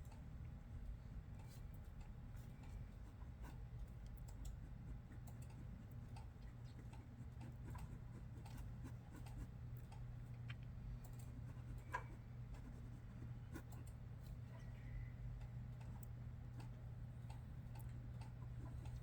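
Sparse, irregular faint clicks and taps from work at an office desk, over a low steady hum of room tone, with one sharper click about twelve seconds in.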